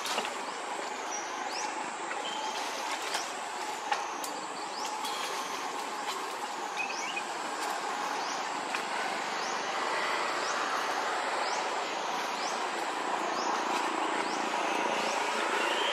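Outdoor forest ambience: a steady rushing background noise with a high-pitched insect call repeating about once a second, growing a little louder in the second half. A few faint clicks, and no monkey calls stand out.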